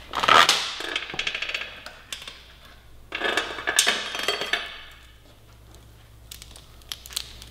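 Steel motorcycle roller chain, the stock 525 chain just taken off, being handled so its links rattle and clink in two bursts, about three seconds apart.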